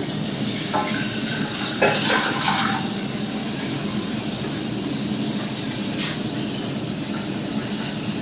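Kitchen tap running hot water into a small saucepan, filling it: a steady rush of water, with a couple of brief changes in the splash about one and two seconds in.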